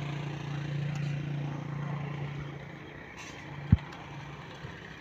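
An engine hums steadily, then fades away about halfway through. Near the end comes one sharp knock, with a fainter tap just after.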